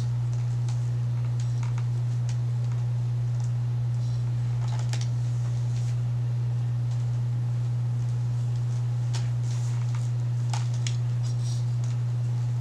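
A steady low hum throughout, with faint, scattered soft rustles and small clicks of hair being handled and wound onto a curling iron.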